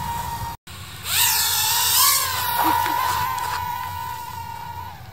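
Spacekey DC-014 mini quadcopter's motors and propellers whining at a steady high pitch. The whine breaks off briefly, then swells sharply about a second in as the drone throttles up. It holds steady and gradually gets fainter toward the end.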